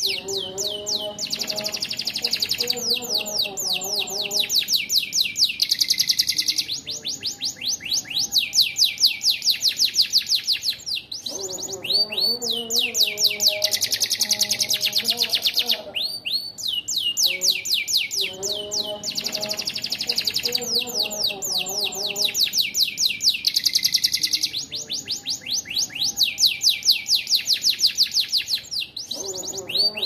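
Domestic canary singing a long, continuous song of rapid high trills and rolling note series with only brief breaks, with phrases copied from a bar-winged prinia (ciblek) worked into it.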